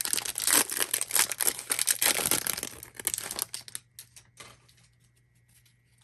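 Bowman Draft hobby card pack wrapper being torn open and crinkled, with dense crackling for about three and a half seconds, then a few soft clicks as the cards come out.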